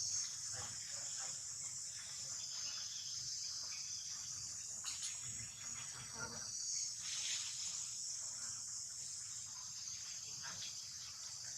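Steady high-pitched chorus of insects trilling, with a few faint knocks.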